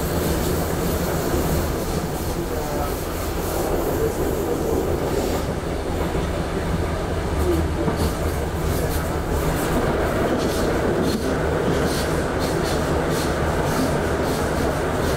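Hamburg U-Bahn train running along the line, heard from the driver's cab: a steady low hum under rail noise, with clicks of the wheels over the track.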